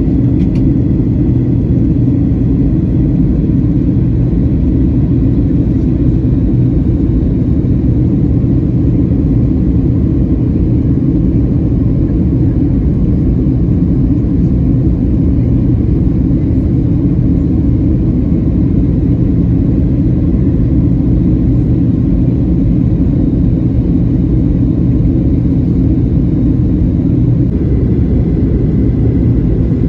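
Steady low rumble of jet engines and airflow heard inside the cabin of a Boeing 737-900 airliner. A faint high steady tone joins near the end.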